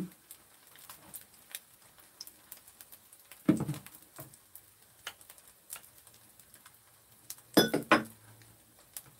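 Metal scissors and chopsticks clinking and scraping against a glass mixing bowl as kimchi is cut up in thick pancake batter, in scattered clicks with a louder clatter midway and another near the end.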